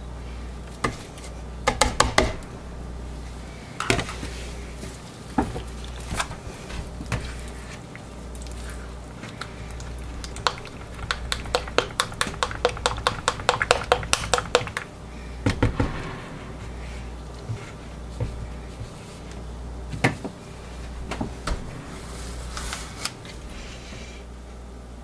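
Plastic soap-making jugs and utensils knocking, tapping and scraping against each other, with a quick run of taps about halfway through, over a low hum.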